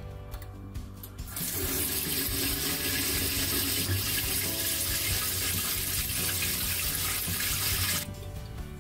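Water running from a mixer tap in a steady stream, starting about a second and a half in and cutting off abruptly near the end.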